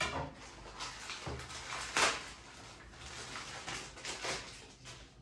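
Rustling and handling noises from a roll of biothane strap and its packaging, with a few sharper clicks, the loudest at the start and about two seconds in.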